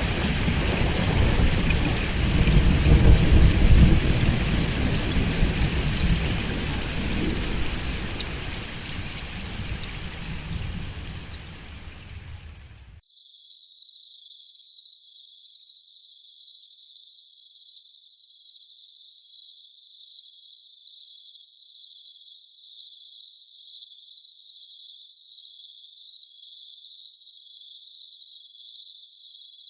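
Rain falling with rumbling thunder that swells about three seconds in, then fades away. About halfway through it cuts abruptly to a cricket chirping steadily in rapid, high-pitched pulses.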